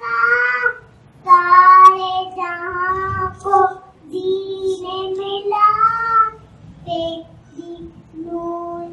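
A young child singing solo into a microphone: held notes in short phrases with brief pauses between them.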